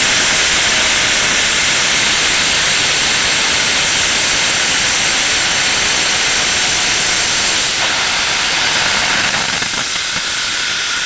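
Nitrous oxide hybrid rocket motor static-firing: a loud, steady hissing roar of the exhaust that eases off slightly over the last few seconds of the burn.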